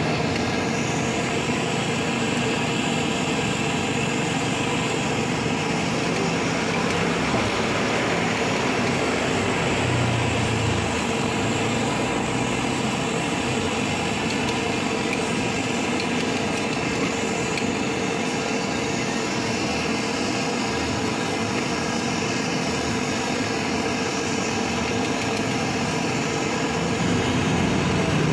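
Steady roadside traffic noise, an even rumble and hiss that hardly changes in level.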